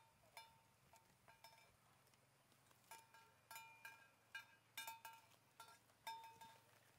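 A metal cowbell on a grazing cow clinks irregularly as the animal moves, at the same ringing pitch each time, sparse at first and then coming one to three times a second. It is faint, over a low steady hum.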